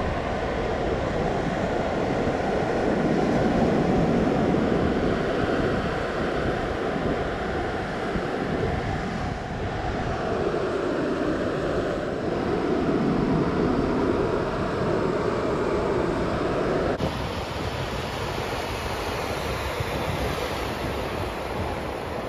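Ocean surf breaking and washing up the sand: a steady rush that swells and eases every few seconds.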